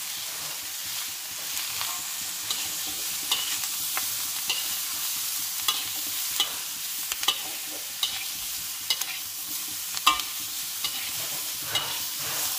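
Beef and vegetables sizzling in a wok while a metal spatula stirs them, scraping and clicking against the pan about once a second. The loudest knock comes about ten seconds in.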